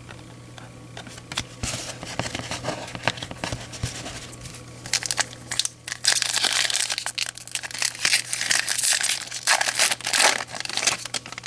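A baseball card pack wrapper crinkling and tearing as a pack is ripped open and handled, getting louder and denser in the second half.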